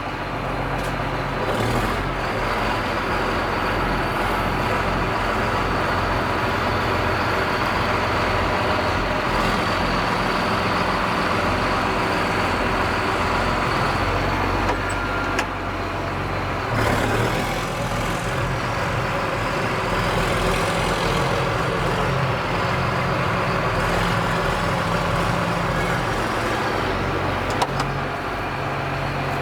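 Heavy diesel engine running steadily, with small shifts in its low engine note partway through.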